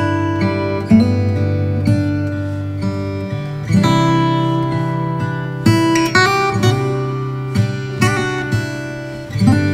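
Background music: chords on a plucked string instrument, struck about once a second, each one ringing out.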